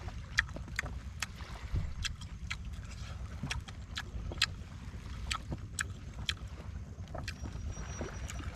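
Steady low rumble of wind and sea, with irregular sharp clicks scattered through it, about two a second.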